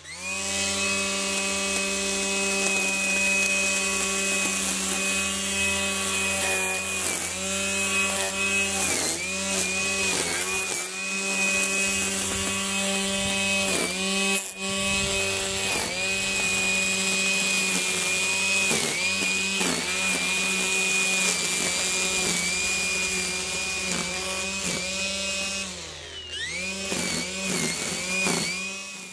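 Makita XRU11M1 18V brushless cordless string trimmer running and cutting grass, a steady motor whine. Its pitch dips briefly again and again as the line bites into the grass. Near the end it slows and then speeds back up.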